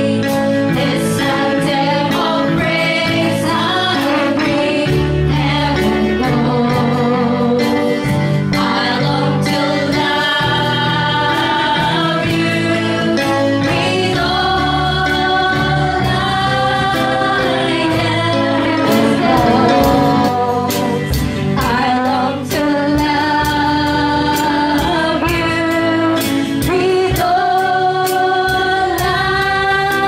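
Christian worship song: voices singing held, melodic lines over instrumental accompaniment with a steady beat.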